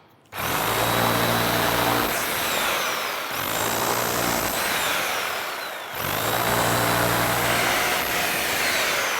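Ronix 2736 1500 W SDS-Plus electric rotary hammer starting abruptly and running hard, with a fast repeating beat under the motor whine. It eases off briefly about two seconds in and drops out and starts again about six seconds in.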